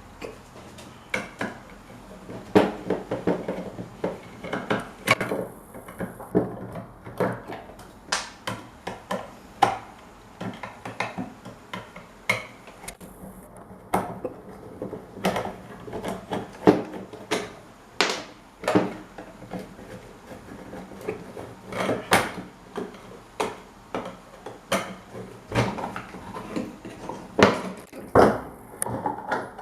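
Irregular knocks, taps and metal clinks of hand tools working on the metal parts of an old standing electric fan during its restoration.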